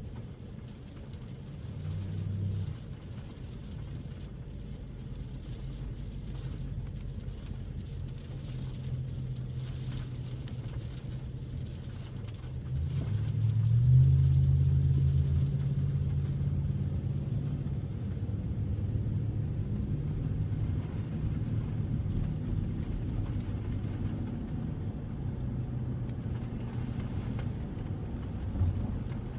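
2021 Ford F-150 pickup driving, its engine and road noise a steady low rumble that swells as the truck accelerates about halfway through, then settles into a steady cruise.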